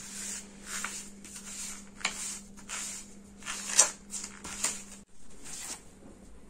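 Chart paper and cardboard rustling and scraping in a run of irregular strokes as hands handle and turn a layered paper cell wheel, the loudest stroke a little before four seconds in.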